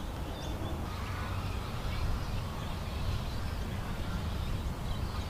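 Outdoor ambience: a steady low rumble with faint, scattered bird chirps over it.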